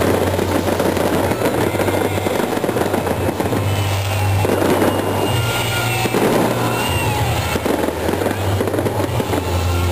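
Fireworks display: a continuous barrage of aerial shells bursting, with dense crackling stars.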